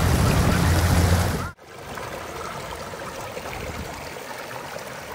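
Shallow mountain stream running over stones: a steady rushing, loud with a deep rumble for the first second and a half, then cutting to a quieter, even flow.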